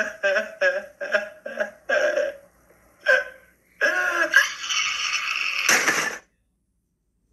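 A cartoon character crying: short sobbing gasps about three a second, then a longer wailing cry that ends in a short noisy burst about six seconds in.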